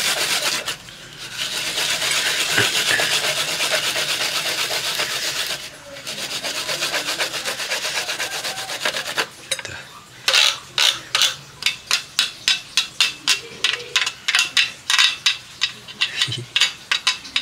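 A garlic clove being grated on a fine metal rasp grater. The rasping is fast and almost continuous for the first nine seconds or so, with two short pauses. From about ten seconds in it turns to separate quick strokes, roughly two to three a second.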